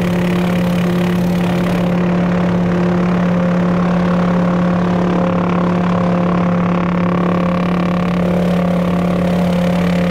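Light helicopter in flight, heard from inside the cockpit: its engine and rotor make a loud, steady drone with a strong low hum. The high hiss eases off a couple of seconds in.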